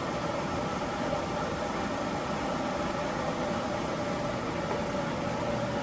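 18-inch Standard Modern engine lathe running under power, with its geared headstock and lead screw driving the carriage. It makes a steady mechanical hum with a faint, even whine.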